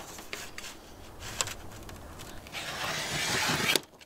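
Utility knife drawn along a steel straightedge, scoring a cut line in thin sheet metal: one scratching stroke just over a second long that grows a little louder and cuts off sharply. A few light clicks come before it.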